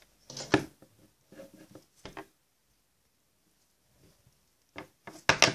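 Light clicks and rustles of handling as hands wind a doll's hair around a thin stick, in scattered bursts with a hush of about two seconds in the middle and a few sharper clicks near the end.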